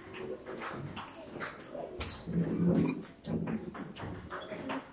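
Table tennis balls clicking sharply off paddles and tables in a rally. A brief pitched cry about two seconds in is the loudest sound.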